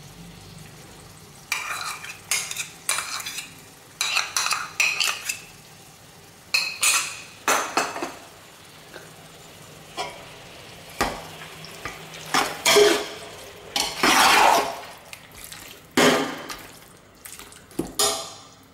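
Slotted metal ladle scraping and knocking against the sides of a metal cooking pot in irregular strokes as thick chicken masala with yogurt is stirred, starting about a second and a half in.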